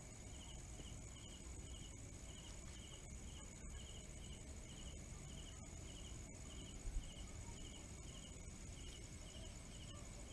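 Faint, regular chirping: short trills about two a second over a steady high whine and low background noise, with one soft low thump about two-thirds of the way through.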